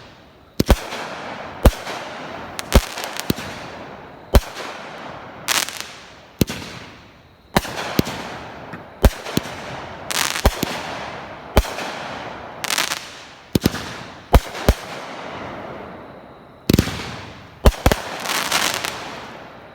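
Pyro Demon 16-shot, 350-gram consumer firework cake firing: a sharp bang about once a second, each trailed by a longer fading hiss. The shots come closer together near the end for the finale.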